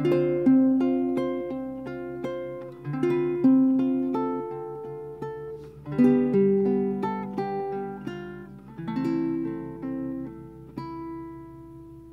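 Kala acacia baritone ukulele played solo, chords and single notes picked and left to ring out, in a slow melody. The notes die away near the end.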